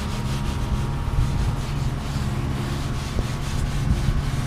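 A green scouring pad rubbed lightly over vinyl boat seat upholstery, faint strokes under a steady low hum and wind rumbling on the microphone.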